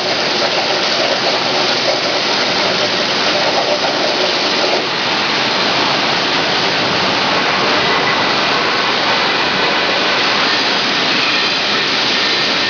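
Plasma torch of a CNC plasma cutting machine cutting metal plate: a loud, steady hiss, dipping slightly about five seconds in.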